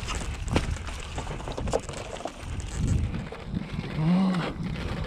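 Mountain bike riding down a rough trail: scattered rattles and sharp knocks over a steady low rumble of wind on the microphone. A short low pitched sound about four seconds in.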